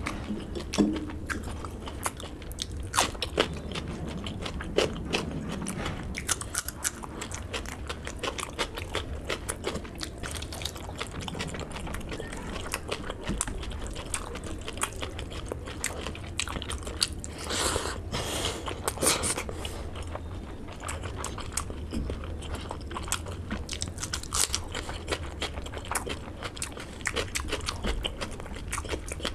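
Close-miked eating sounds of a man chewing rice and pork curry: wet chewing with frequent crunchy bites and mouth clicks, denser and louder a little past halfway. A steady low hum sits underneath.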